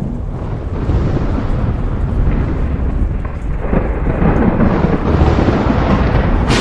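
Thunder rumbling low and continuously under steady rain, the rumble swelling louder a little past halfway through.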